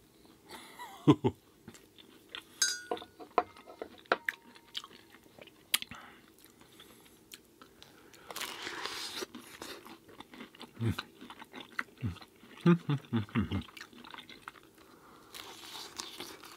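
Close-miked eating: a man chewing and crunching a mouthful of breakfast food, with scattered sharp clicks and a run of short low sounds about three-quarters of the way through.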